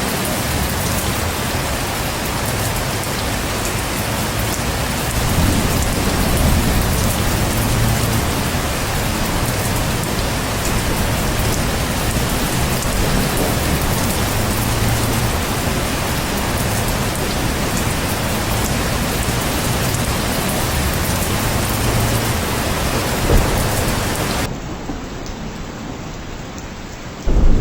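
Heavy rain pouring steadily, with low thunder rumbling in the background several times. Near the end the rain turns quieter and duller, then a loud low clap of thunder breaks in right at the close.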